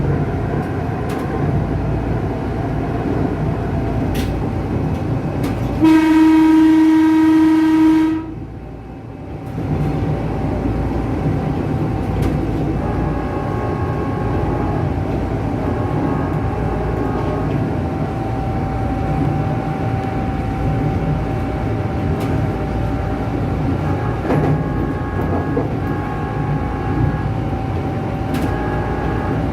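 Ex-Tokyu 8500-series electric commuter train running, a steady rumble with a faint constant whine. About six seconds in, its electric horn sounds one loud, steady blast of about two seconds.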